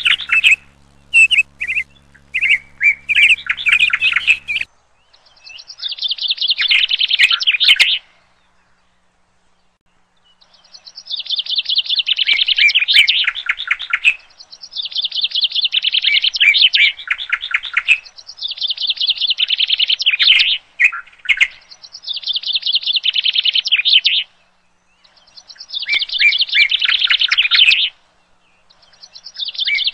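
Bird song: rapid runs of chirping notes, repeated in phrases of about three seconds with short pauses between them.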